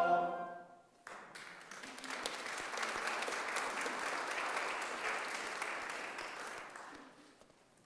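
A choir's last chord dies away, then the congregation applauds for about six seconds, the clapping fading out near the end.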